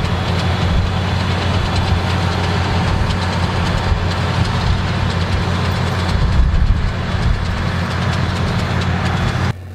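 Massey Ferguson 7480 tractor's six-cylinder diesel engine running steadily under load while pulling a Grimme potato planter and front rotary harrow, a low hum with a light rattle from the working implements. It cuts off abruptly near the end.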